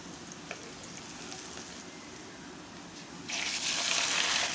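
Sliced shallots and curry leaves frying in hot sesame oil in an iron kadai, a steady quiet sizzle with a few small pops. About three seconds in, the sizzle suddenly turns much louder and hissier.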